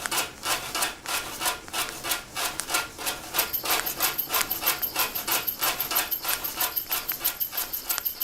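Rhythmic scraping strokes, played like a percussion instrument at about three to four a second, then quickening after about three seconds. A thin high whine joins in at the same moment.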